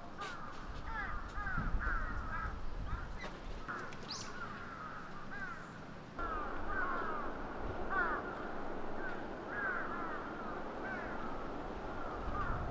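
Birds calling over and over in short, curving calls, with one higher rising call about four seconds in. A faint low rumble runs underneath.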